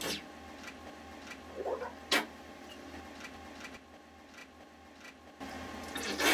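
Faint, regular ticking, about one and a half ticks a second, over a steady low hum, with a single sharp click about two seconds in. Near the end the background changes and there is a short, louder burst of noise.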